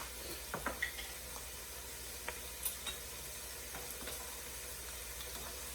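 Vegetables sizzling steadily in a frying skillet, with a few light clicks from a cooking utensil stirring or tapping the pan.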